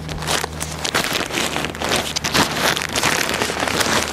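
A plastic bag being handled and folded, crinkling irregularly. A low steady hum fades out about a second in.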